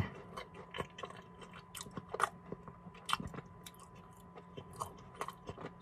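A person chewing a Twix candy bar, with quiet, irregular crunches of the cookie.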